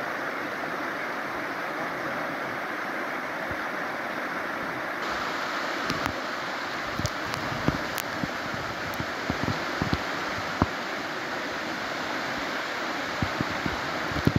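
Shallow, rocky stream rushing steadily over stones. From about six seconds in, scattered sharp clicks and knocks sound over it.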